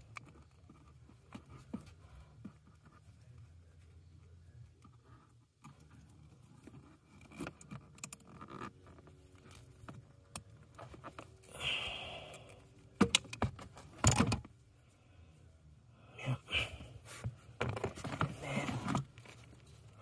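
Wiring work by hand: small clicks, scrapes and rustles as yellow butt-splice connectors are fitted onto the wires of a new blower motor connector and squeezed with crimping pliers. The sharpest clicks come in a cluster a little past the middle.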